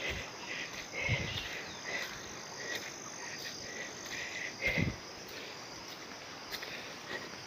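Faint frogs calling in short, repeated croaks, several a second. Two soft low thumps, about one and five seconds in.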